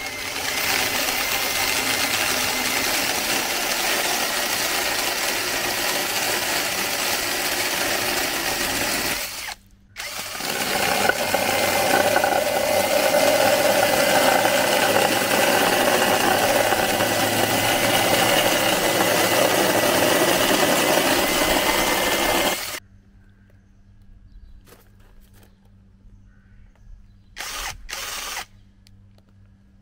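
Cordless brushless drill driving a chainsaw attachment, its chain cutting through wood: a steady motor whine under the chain's rasp. It runs for about nine seconds, stops briefly, runs again for about thirteen seconds, then stops. Near the end comes one short burst of about a second.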